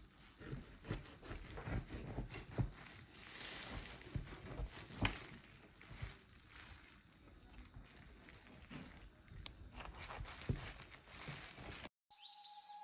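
Faint handling noises as a halved jackfruit is split with a kitchen knife over a plastic bin bag: scattered light clicks and rustles. Just before the end the sound cuts out and music begins.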